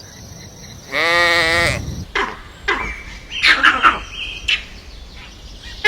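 One long bleat, about a second long, starting about a second in, followed by a run of sharp clicks and short high-pitched notes.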